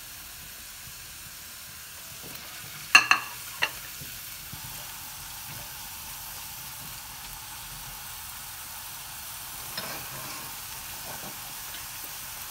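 Chopped onion sizzling in hot oil in a non-stick wok, a steady frying hiss, as a spatula stirs it. Sharp knocks of the spatula against the wok about three seconds in, and a few lighter ones near ten seconds.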